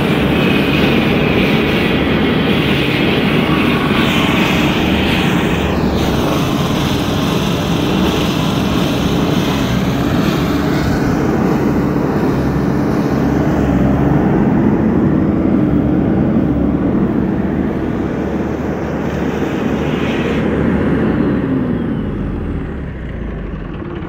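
Husqvarna FS 700 D diesel walk-behind floor saw, a 30-inch diamond-blade road saw, running loud and steady at high throttle; near the end the engine throttles down and its pitch falls.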